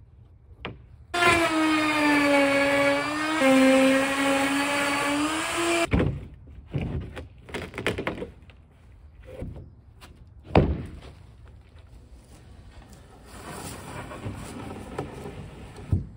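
Handheld router with a flush trim bit running in OSB sheathing. Its whine dips in pitch about two seconds in, recovers, and stops after about five seconds. Scattered wooden knocks and thunks follow as the cut-out piece of OSB is worked loose.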